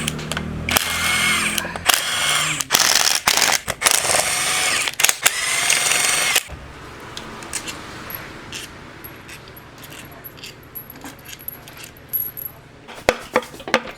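Power driver run in about six short bursts, spinning out the clutch-cover bolts on a KTM Duke 390 engine, with a whine that rises each time it spins up. Then quieter scattered clicks and taps of metal parts being handled.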